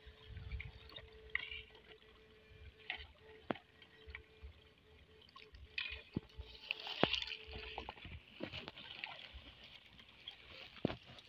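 Shallow muddy water sloshing and splashing as someone wades and gropes in it, with scattered knocks and a louder splash about seven seconds in. A faint steady hum from the electric fish stunner stops about eight seconds in.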